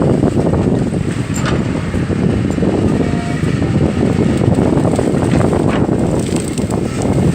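Hydraulic excavator's diesel engine running steadily, with wind buffeting the microphone.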